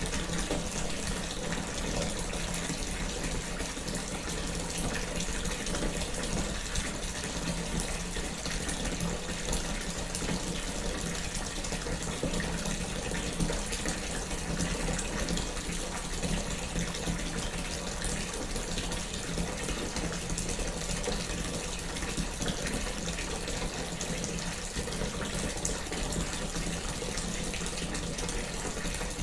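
Tap running steadily into a filling bathtub, a continuous even gush of water.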